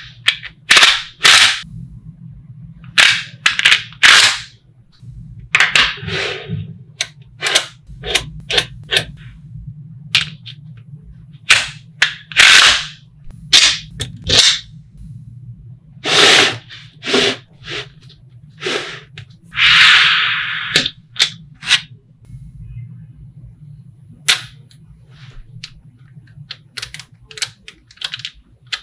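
Small magnetic balls snapping and clicking together as they are assembled, in sharp, irregular clicks with short pauses between them. About 20 seconds in comes a longer rattling clatter of the balls.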